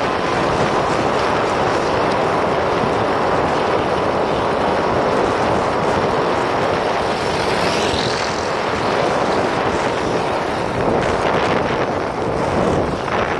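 Loud, steady wind noise rushing over the microphone of a handheld phone on a bicycle descending at about 80 km/h.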